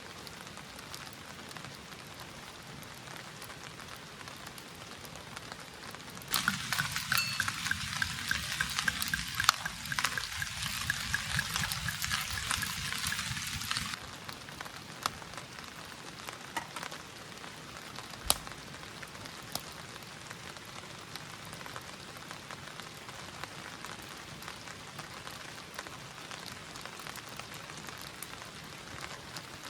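Steady rain falling, with a louder stretch of sizzling like food frying from about six seconds in to about fourteen seconds, starting and stopping abruptly. A few scattered drips or ticks come after it.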